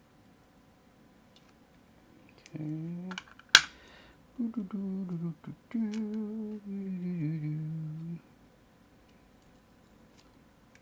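A man humming a wavering tune in a few short phrases, with one sharp click in the middle, the loudest sound.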